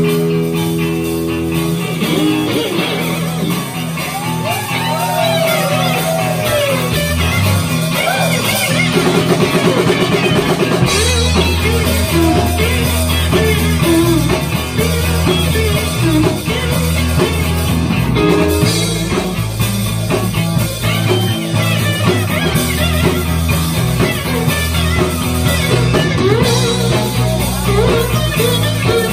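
Live rock band playing: electric guitars over a drum kit, with bent lead guitar notes, around 4 to 7 seconds in.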